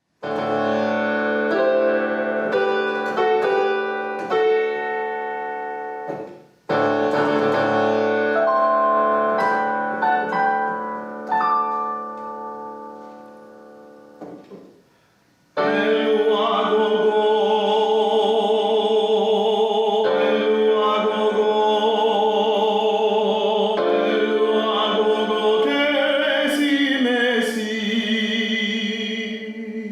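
Solo piano plays two phrases, each dying away into a pause. About halfway through, a classically trained voice enters with piano accompaniment, holding long notes with wide vibrato.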